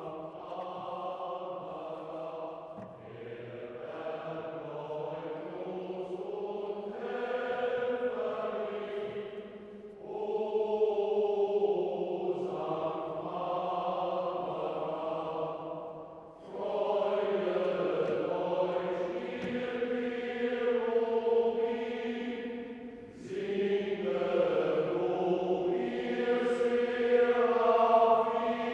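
A choir singing a slow sacred piece in long, sustained phrases. It takes short breaths about every six or seven seconds.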